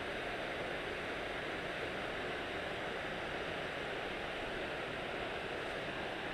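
A steady, even hiss with no distinct sounds in it.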